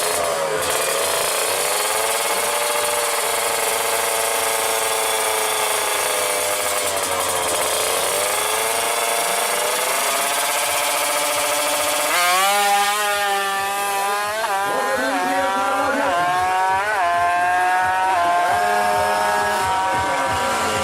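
Tuned Kawasaki Ninja drag-bike engine held at high revs with a wavering pitch. About twelve seconds in it launches and pulls through the gears: the pitch climbs, drops at each shift and climbs again, five or so times.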